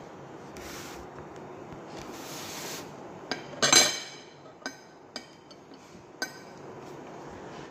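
Metal cutlery clinking against a plate about five times, the loudest clink a little before halfway, over a steady background hiss.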